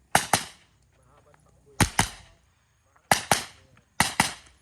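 Gunshots fired in quick pairs, two shots about a fifth of a second apart, four pairs in a row about a second and a half apart: double taps on targets in a practical shooting stage.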